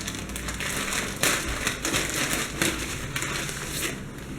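Packaging being opened by hand: irregular crinkling and rustling with crackles as the wrapping is torn and handled.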